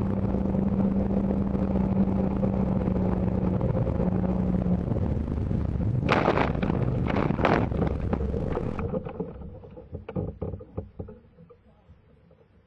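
Jet ski engine running at speed with wind buffeting the microphone, then a few seconds of loud crashing and thrashing about six seconds in as the craft tears into the branches of shoreline trees. After the crash the engine dies away, and scattered snaps and clatter of twigs fade out.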